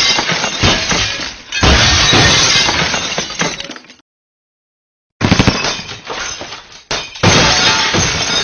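Glass shattering, heard as two separate effects. Each effect is a loud crash followed by a second crash about two seconds later, and each fades away. A second or so of dead silence sits between the two effects.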